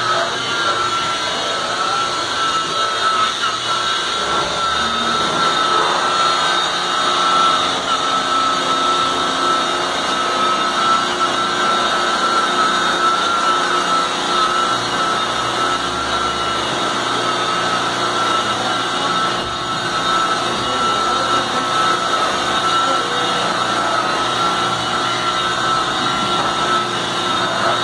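Handheld rotary car polisher running steadily, buffing the paintwork, with a constant high whine.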